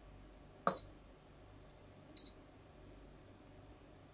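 SkyKitchen multicooker's control panel beeping twice, about a second and a half apart, the first beep with a click, as its dial is turned and pressed to select the frying mode.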